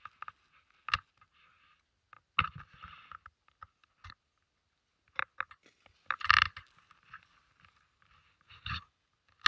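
Short, irregular scrapes and crunches on packed snow, coming in bursts, the loudest about two and a half and six seconds in.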